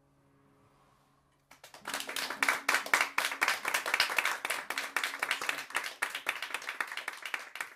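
A final acoustic guitar chord fading out. About a second and a half in, a small audience starts clapping and keeps clapping steadily.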